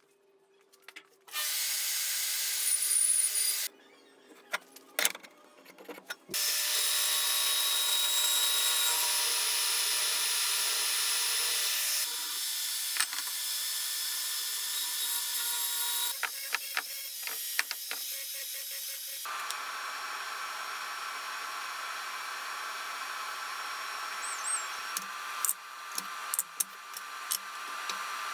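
Power tools working wood, running in several separate stretches that each start and stop abruptly, with a few knocks in the gaps between them.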